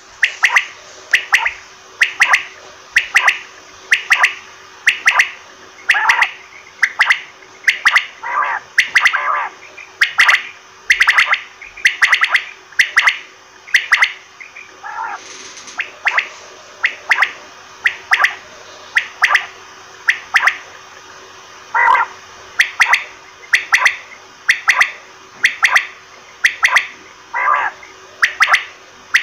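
Quail calling over and over: short, sharp calls about once a second, some in quick runs, with two brief breaks.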